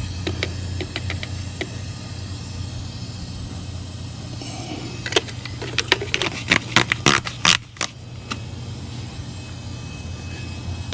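A handheld trigger spray bottle squirting leak-detection soap onto a nitrogen-pressurized brazed suction-line joint: a burst of quick, sharp squirts about five to eight seconds in, with a few faint clicks near the start. A steady low mechanical hum runs underneath.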